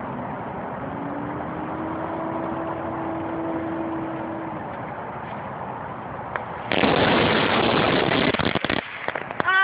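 Airsoft claymore mine set off about seven seconds in: a sudden loud blast that hisses on for about two seconds, over a steady background hum.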